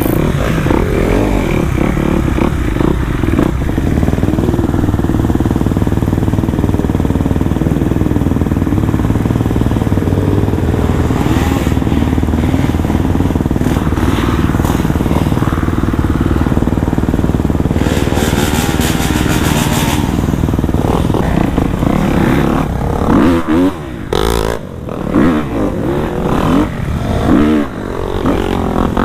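Dirt bike engine running while being ridden, the revs rising and falling with the throttle, with sharper swings in revs near the end.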